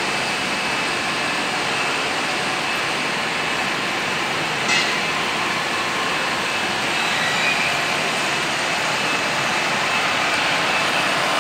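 Steady running noise of machine tools in a die-and-mould workshop: an even mechanical hum and hiss with a couple of faint steady high tones, and one short click about five seconds in.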